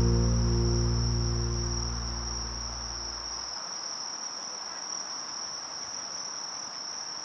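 Steady, high-pitched, unbroken trilling of a chorus of singing insects. Over the first few seconds, background music with low held notes fades out beneath it.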